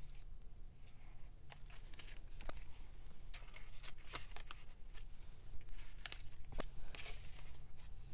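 Small paper cutouts being handled and slid into clear plastic page pockets: scattered light rustles, scrapes and clicks of paper against plastic sleeve.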